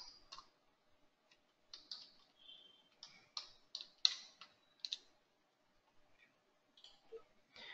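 Faint clicks of a computer mouse and keyboard: a string of short, separate clicks, most of them between about two and five seconds in, and a couple more near the end.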